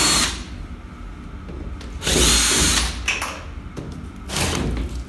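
Power drill-driver whirring in short runs, backing out the screws of the plastic cover under a washing machine's motor: one run ending just after the start, another about two seconds in, and a shorter one near the end.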